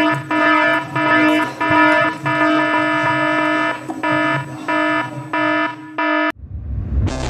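An electronic buzzing tone of steady pitch, like an alarm or buzzer, sounding in a run of on-and-off pulses of uneven length. It cuts off abruptly about six seconds in, and a noisier, lower sound takes over near the end.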